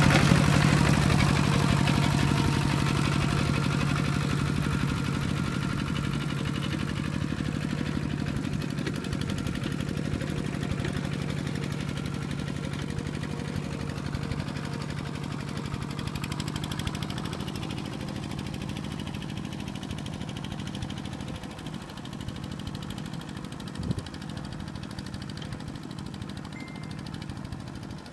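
Two-wheel walking tractor's single-cylinder diesel engine running steadily as it works a flooded paddy, fading gradually as the tractor moves farther away.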